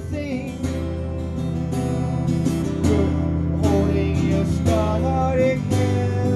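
Acoustic guitar strummed steadily, with a man's voice singing a wordless line over it in places.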